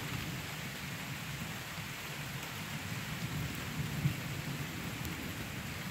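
Thunder rumbling low under steady rain. The rumble grows a little stronger about halfway through.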